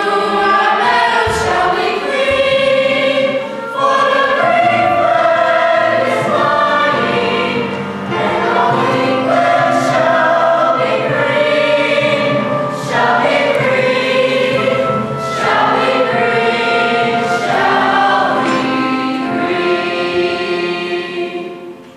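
A stage cast singing a song together in chorus, many voices at once, with long held notes; the song finishes near the end.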